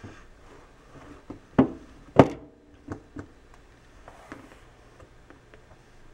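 A lid being worked onto a saucepan: two sharp clanks about half a second apart, the second the loudest and ringing briefly, then a few lighter taps and knocks.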